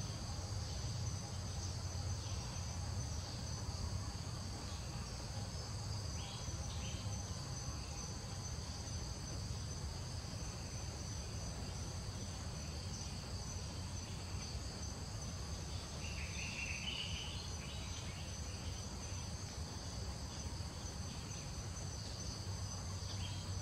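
Steady outdoor insect chorus, a continuous high-pitched drone of several unbroken tones, over a low steady rumble. A brief higher chirp sounds about two-thirds of the way through.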